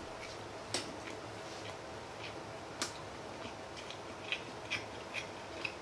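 Close-up eating sounds of a mouthful of sushi being chewed: a handful of soft, scattered wet clicks and smacks over a faint steady room hum.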